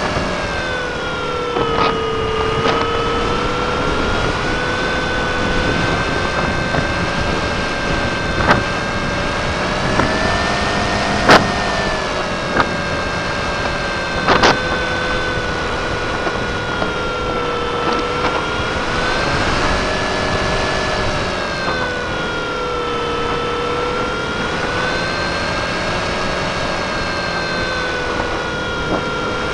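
Model airplane's engine running steadily, heard from a camera on board the plane, its pitch rising and falling slowly every few seconds. A few sharp clicks come through about midway.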